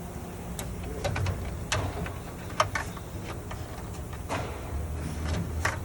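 Scattered sharp clicks and light knocks of parts and wiring harnesses being handled and tucked into place inside a vending machine, about a dozen irregular taps over a steady low hum.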